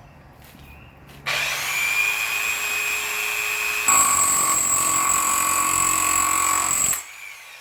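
Rotary hammer running in hammer-only mode, with the bit not turning, chipping concrete. It starts about a second in, gets louder about four seconds in, and stops abruptly near the end.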